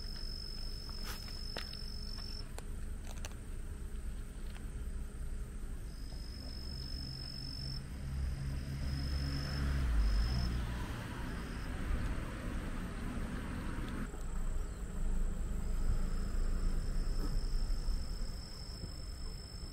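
Insects trilling: a thin, high, steady trill that breaks off and starts again several times, over a low rumble and a few faint clicks.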